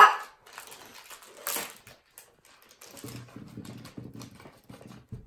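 A child's brief shout right at the start, then the quiet rustle and light clicks of a plastic bag of foam balls being handled, with a faint low hum from about three seconds in.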